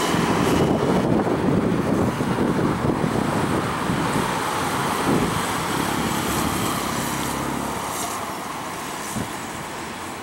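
Jet engines of an Airbus A319 airliner climbing away after takeoff: a deep, steady rumble that slowly fades as the aircraft recedes.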